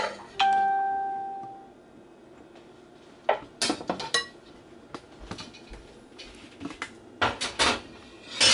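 A metal spoon striking and scraping a metal skillet. One clear ringing clang just after the start fades over about a second, then short clusters of clinks and scrapes follow.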